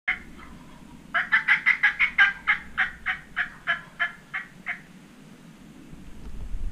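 Turkey calling: a single note, then a run of about a dozen loud, evenly spaced call notes, about three a second, fading toward the end. A low rumble builds near the end.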